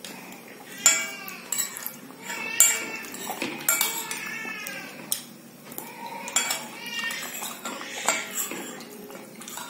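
A metal spoon clinks and scrapes against a glass bowl of kheer several times, sharpest about a second in and again near 2.6 s, with mouth sounds of eating in between.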